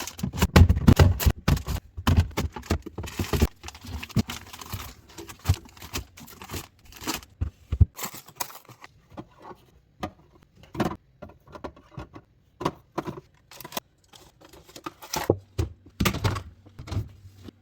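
Groceries and packaging being handled while restocking a refrigerator: a string of knocks and clacks as items are set down, with crinkling and tearing of packaging, busiest in the first few seconds and sparser after.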